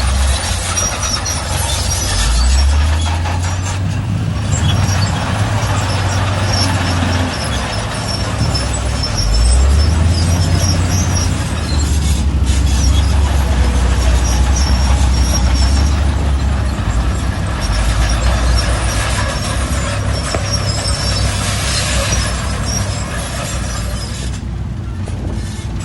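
Heavy diesel earthmoving machinery working in sand: a deep engine runs under load and revs up twice, with high metallic squeaks and a steady clatter above it.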